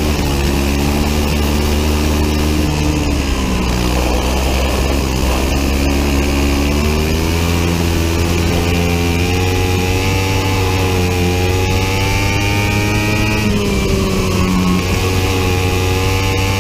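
Biland SA250 four-stroke kart engine at racing revs, its pitch climbing along the straights and dropping off into corners several times, between roughly 8,600 and 11,500 rpm, over a steady low rumble.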